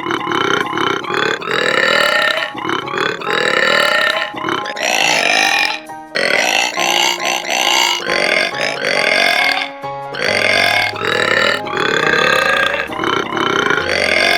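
A person belching over and over, a run of long pitched burps that follow the rhythm of a musical backing track in place of sung words.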